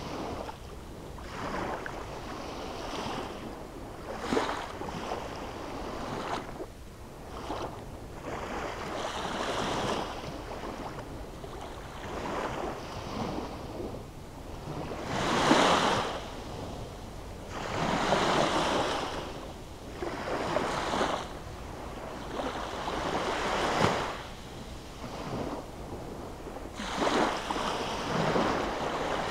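Small sea waves breaking on a sandy shore and washing up the beach, a rushing swell every few seconds, some stronger than others.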